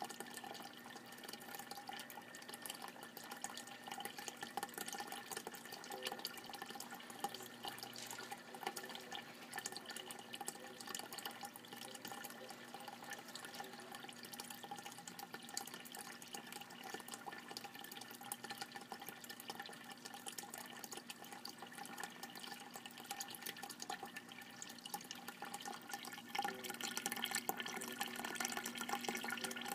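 Aquarium filter outflow splashing and trickling steadily onto the water, with fine bubbling and a steady hum underneath; it grows a little louder near the end.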